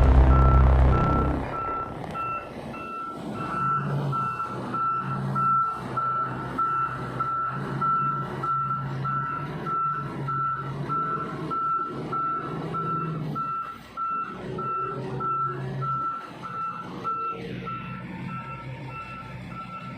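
Heavy vehicle's reversing alarm beeping steadily in a high single tone, over a low diesel engine running, as the vehicle backs up.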